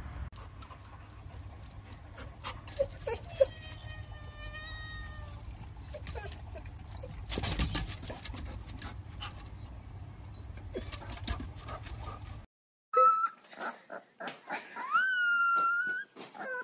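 A young puppy howling: a few short yelps, then one long rising howl near the end, the loudest sound here. Earlier, over a low rumble, come scattered clicks and a brief whining call about four seconds in.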